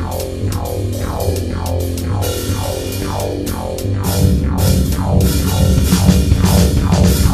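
Rock music track: guitar, bass and drum kit, with a run of quick downward-sliding notes repeating through it. The low end grows fuller and louder about four seconds in.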